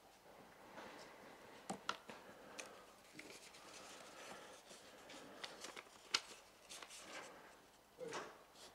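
Faint paper rustling and scattered small clicks and knocks as ballot papers are handed out onto council members' desks, with one sharper click about six seconds in.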